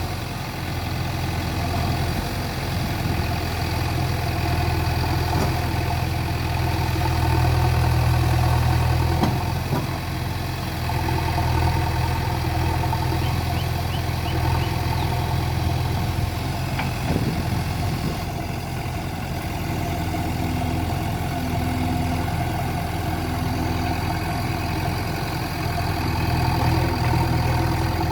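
JCB 3DX backhoe loader's diesel engine running steadily, growing louder for a few seconds about a third of the way in, with a couple of faint knocks.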